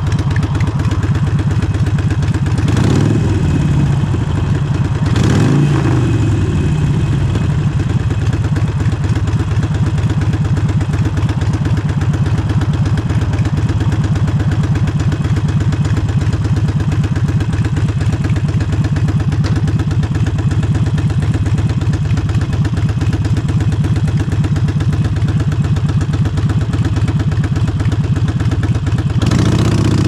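Harley-Davidson Forty-Eight's air-cooled V-twin running through Vance & Hines exhaust pipes at a steady, unchanging note, with its pulsing beat. Two brief sweeping sounds come about three and five seconds in, and the engine note picks up near the end.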